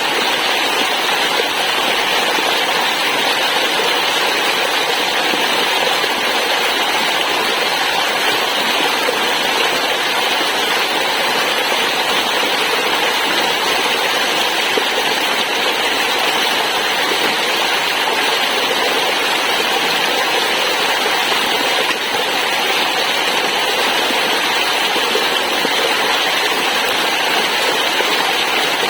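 Waterfall: steady rush of falling water, an even, unbroken noise with no change in level.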